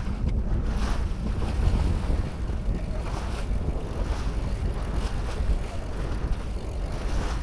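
Wind buffeting the microphone over the rush of water and waves around a sailboat underway.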